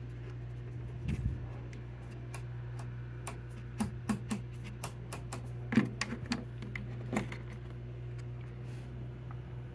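Low steady hum from an RCA 813K tube radio's speaker, the radio powered up but not yet playing. Over it come irregular sharp clicks and taps as tubes are handled in loose sockets.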